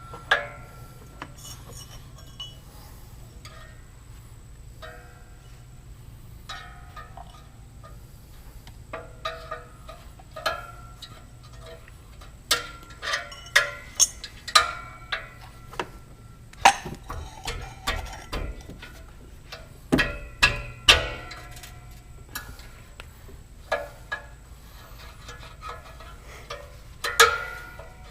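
Tools clinking and knocking against the metal exhaust springs and pipe of a UTV, in irregular clusters with short metallic ringing after some strikes, as the springs are worked loose.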